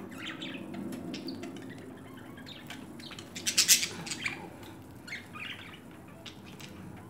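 Pet budgerigars chirping and chattering in short scattered calls, with one brief, louder burst about halfway through.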